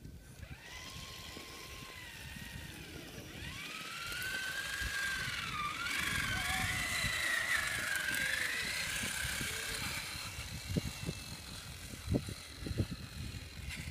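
Electric RC trucks running through sand: a motor-and-gear whine that rises and falls in pitch with the throttle. It is loudest in the middle and fades out, with a few low thumps near the end.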